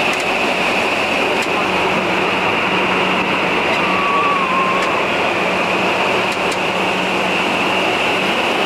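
Vertical wind tunnel running: a loud, steady rush of air from its fans, with an even high-pitched whine over it.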